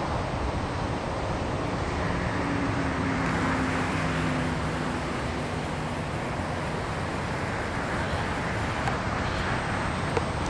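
Steady outdoor background noise, a broad rushing hiss, with a low hum that comes in about two seconds in and fades out around six seconds.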